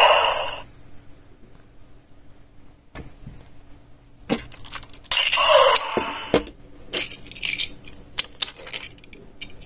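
Hard plastic toy vehicles and robot parts clicking and knocking as they are handled and set down on a desk, with a louder scraping rustle about five seconds in.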